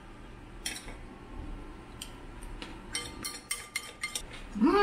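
Metal cutlery clinking and scraping in a ceramic bowl, a run of quick clicks about three seconds in. Near the end a brief vocal sound, the loudest moment.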